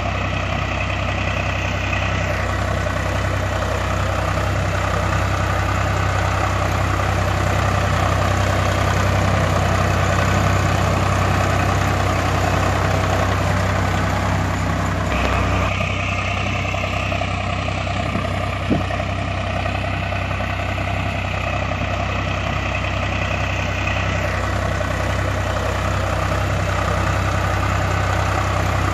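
Truck engine idling with a steady, evenly pulsing low throb. Its tone shifts slightly about 2 seconds in, midway through and again near the end.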